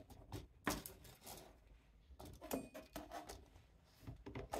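Irregular light clicks, taps and rustles of small parts, wires and tools being handled at a workbench.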